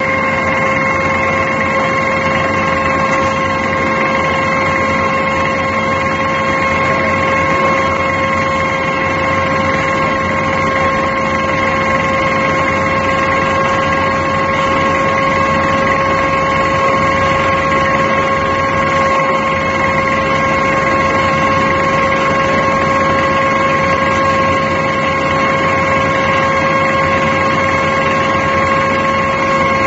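JK650 down-the-hole drill rig, with its built-in Atlas Copco air compressor, running steadily while drilling rock: loud unbroken machine noise with a constant high whine over it.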